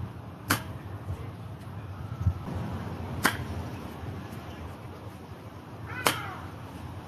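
Crisp clicks of a 60-degree wedge striking golf balls off grass, three hits about three seconds apart. The third click comes with a short pitched cry that falls in pitch.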